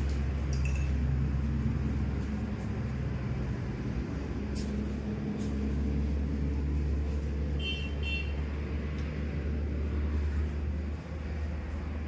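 Steady low engine-like rumble, as of a vehicle running, with two short high beeps about eight seconds in.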